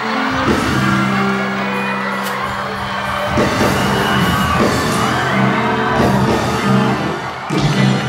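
Studio audience laughing loudly over background music with held low notes.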